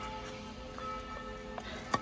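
Background music of held, slowly changing notes, with one sharp click near the end.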